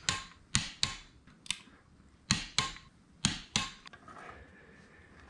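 Sharp metallic clicks from a socket wrench working a bolt on the transmission case's bearing retainer, about eight in uneven pairs over the first three and a half seconds. They are followed by softer handling noise from the case.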